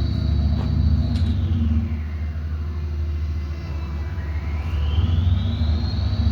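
Heavy diesel road-construction machinery running steadily with a deep rumble. Over it a high whine drops in pitch during the first two seconds and climbs back up near the end.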